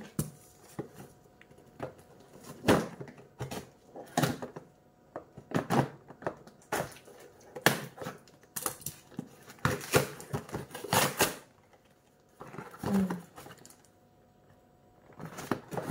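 A small cardboard parcel being handled and cut open with scissors: a string of sharp, irregular snips, crackles and scrapes of cardboard and packing tape, falling quiet for a few seconds near the end.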